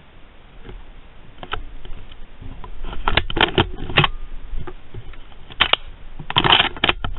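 Irregular bursts of rustling and crackling clicks, one cluster about three seconds in and a louder one near the end.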